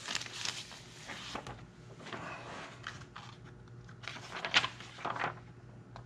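Paper brochure being slid out of a plastic page protector and unfolded: an irregular crinkly rustling of paper and plastic sleeve, loudest about four and a half seconds in.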